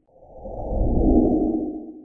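A low, muffled whoosh that swells up and fades away over about two seconds, like an edited transition sound effect.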